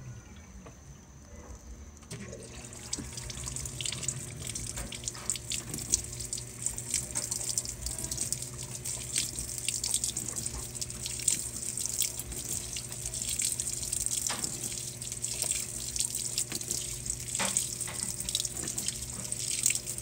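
Brastemp Vantage top-load washing machine filling: about two seconds in, water starts pouring from the inlet into the turning basket and splashes steadily onto the soaked blanket, with a steady low hum underneath.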